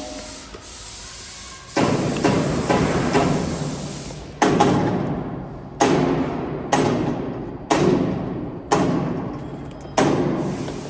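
Heavy metallic blows on the steel barrel of a conical twin-screw extruder as it is driven onto its gearbox: about ten knocks, four in quick succession and then roughly one a second, each ringing on for most of a second.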